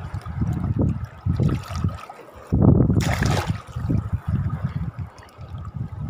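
Shallow seawater sloshing and lapping in uneven surges, with a louder rush of water lasting about a second, two and a half seconds in.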